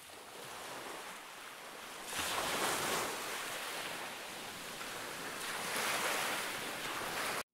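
Ocean surf breaking on a shore, fading in and swelling twice, about two seconds in and again near six seconds, then cutting off suddenly near the end.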